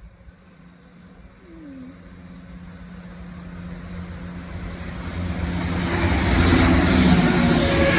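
A train approaching, its engine and wheel noise growing steadily louder until it is loud near the end.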